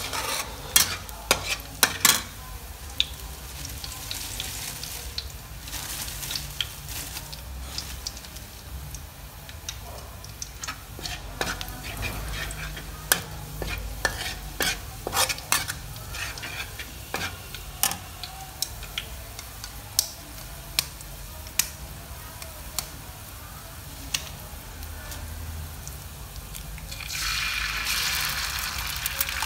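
Metal spatula scraping and clicking against a steel wok while minced garlic fries in hot oil, with many sharp taps over a soft sizzle. Near the end the sizzle gets suddenly louder as duck eggs drop into the hot oil.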